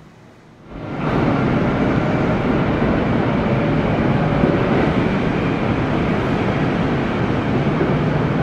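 Kintetsu electric train running close by: a sudden rise about a second in to a loud, steady rumble that holds.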